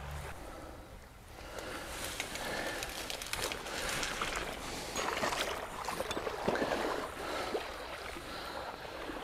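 River water rushing over stones in a broken, choppy run, with irregular sloshing and splashing of waders pushing through the shallows.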